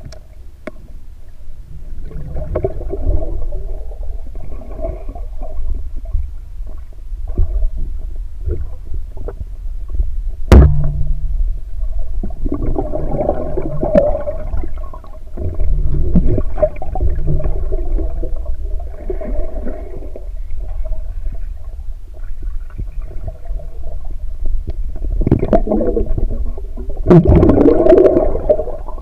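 Muffled underwater noise picked up by a camera inside its waterproof housing: low rumbling water movement with gurgling swells, scattered clicks and knocks, and one sharp knock about ten seconds in.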